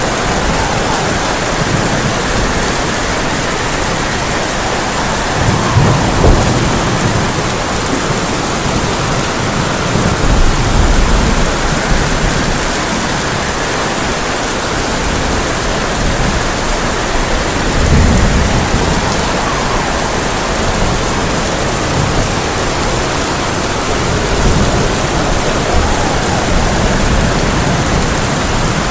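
Heavy rain drumming steadily on a tin roof, with low rolls of thunder swelling up and fading away about four times.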